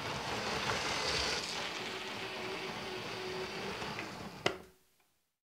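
LEGO 9-volt electric train running on its track, a steady rattling roll with a faint steady hum in the second half. A sharp click comes about four and a half seconds in, then the sound falls away to silence.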